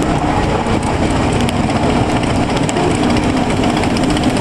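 Avalanche bobsleigh roller coaster car rolling over the top of its lift hill and starting down into the first trough: a steady loud rumble of wheels on the track, mixed with wind noise on the ride-mounted microphone.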